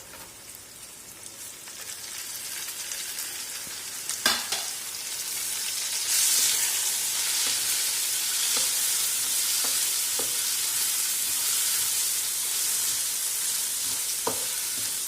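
Onions frying in hot oil in a pan, a steady sizzle that grows louder about six seconds in. A sharp utensil knock comes about four seconds in, and a spoon taps the pan now and then as the mixture is stirred.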